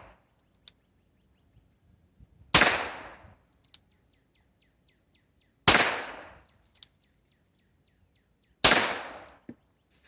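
Three shots from an M1895 Nagant revolver firing light Soviet target loads, spaced about three seconds apart, each ringing off in a short echo. A faint click follows each shot about a second later.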